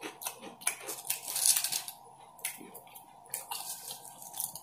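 Close-up chewing of crisp potato chips: a string of short, uneven crunches with small gaps between them, loudest about a second and a half in.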